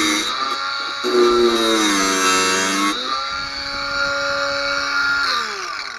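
Parkside cordless angle grinder cutting through a thin steel barbecue leg. Its motor whine sags in pitch under load during the first three seconds. It then spins free at a steady pitch and winds down, falling in pitch, after being switched off near the end.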